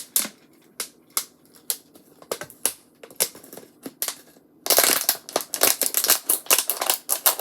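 Scissors cutting a plastic water bottle down into a cup: separate sharp snips about every half second, then, from about two-thirds of the way in, a dense run of crackling and crunching of the plastic.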